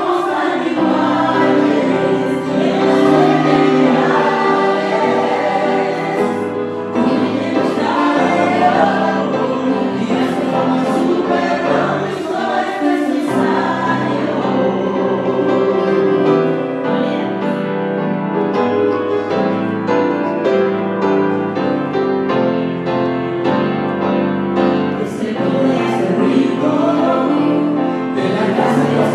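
A small worship team, a man and two women, singing a gospel-style Christian song together into microphones, their voices held in long sustained notes.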